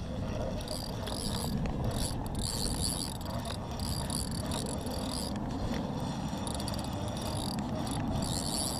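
Fishing reel being cranked, a whirring gear sound in stretches of about a second with short pauses, over a steady low rumble.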